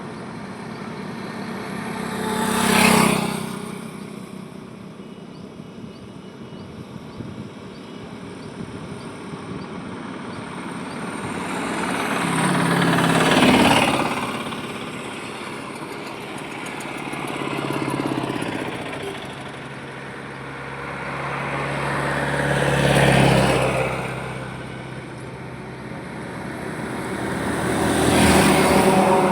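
Highway traffic: five vehicles pass one after another, each swelling up and fading away over a few seconds, with tyre noise and engine hum over a steady road rumble.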